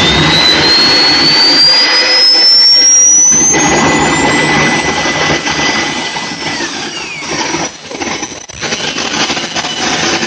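RC model jet turbine (Swiwin micro turbine) running during a test run after balancing, its high whine rising steadily in pitch over the first four seconds or so as it spools up, then levelling off. After about seven seconds the sound drops and turns uneven.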